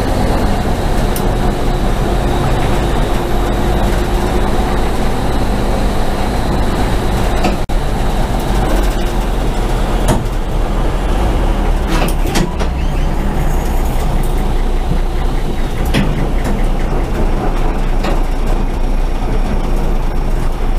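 Racing truck's diesel engine running hard, heard from inside the cab along with wind and road noise. A few sharp knocks or rattles cut through the steady drone.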